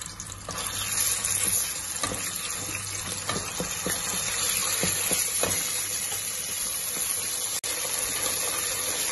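Ginger-garlic paste sizzling in hot oil and ghee with whole spices in an aluminium pressure cooker. The sizzle grows louder about half a second in, as a wooden spoon stirs it and knocks a few times against the pot.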